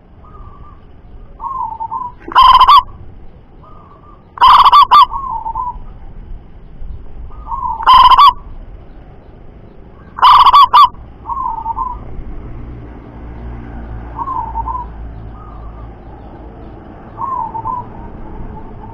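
Zebra doves cooing: short, lilting coos repeated every second or two, four of them much louder and distorted, the rest softer.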